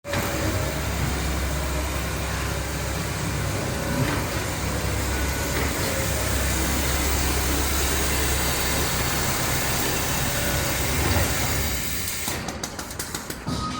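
Large automatic pattern sewing machine running with a steady mechanical hum, then a quick run of clicks near the end.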